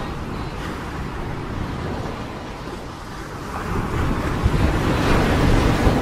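Landslide: a steady rushing rumble that swells louder about three and a half seconds in as the slope collapses.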